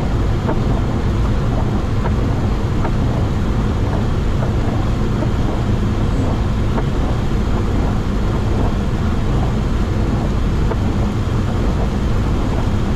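Steady rushing noise inside a Boeing 737 flight deck on approach: airflow and engine noise, with scattered faint ticks.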